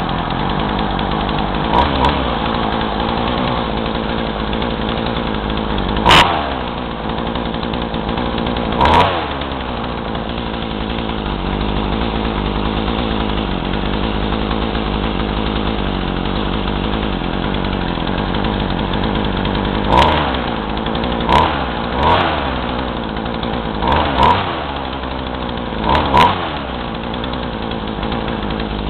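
Craftsman two-stroke chainsaw idling, with several short throttle blips where the engine revs up briefly and falls straight back to idle. The owner says it bogs whenever the throttle is squeezed, and suspects the carburetor adjustment or a worn carb.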